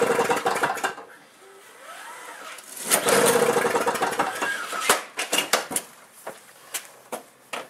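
Two-stroke engine of a single-stage snowblower turning over on two pulls of the recoil starter, each lasting a second or so, without catching: a cold engine that won't start. Clicks and knocks of handling follow near the end.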